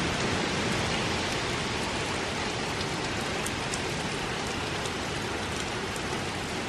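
Heavy hurricane rain pouring steadily, with a few sharper drop ticks heard through the downpour.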